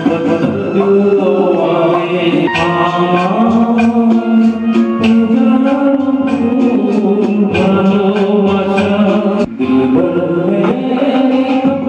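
Music: a song with instrumental backing, long held melodic notes over a steady beat.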